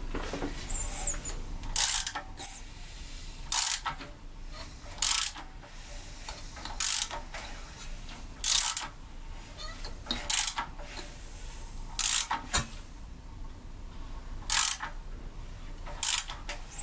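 Socket ratchet on the crankshaft bolt of a 4G63 engine, turning the engine over by hand: a short run of ratchet clicks every second and a half or so as the handle swings back between pulls. The engine is being rotated to check that the freshly tensioned timing belt turns without binding and stays in time.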